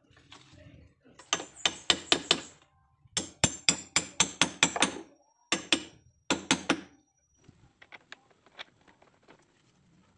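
A hammer striking metal, most likely a bolt being driven up through a wooden boat's bottom from underneath. The blows come in quick runs of several strikes, each with a short metallic ring, and stop about seven seconds in, giving way to faint light taps.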